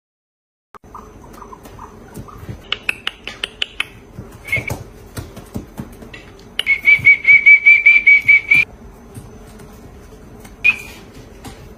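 Ostrich chicks peeping and whistling, with a loud run of rapid chirps, about six a second, for roughly two seconds past the middle, and one more call near the end. A steady low hum runs underneath.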